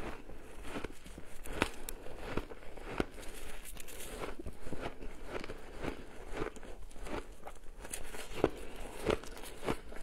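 Shaved ice being bitten and chewed, a steady run of irregular crisp crunches picked up close on a clip-on microphone.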